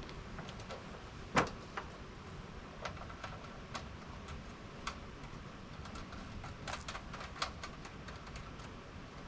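Scattered light clicks and knocks of small hardware and hand tools being handled, irregular rather than rhythmic, with one sharper knock a little over a second in and a quick run of clicks near the end.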